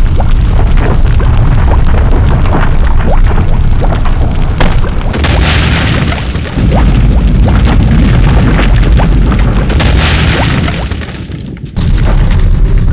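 A loud, continuous booming rumble, heavy in the bass, with several abrupt changes in texture and a brief drop in level shortly before the end.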